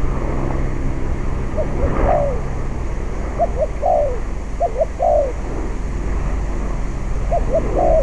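Spotted dove cooing in phrases of short notes, each ending in a longer falling coo. There are three phrases, with a fourth starting near the end, over wind rumbling on the microphone.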